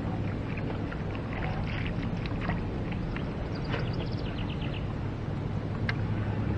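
Steady low hum and rumble of open-air ambience on a small fishing boat on a lake, with scattered bird chirps and one sharp tick about six seconds in.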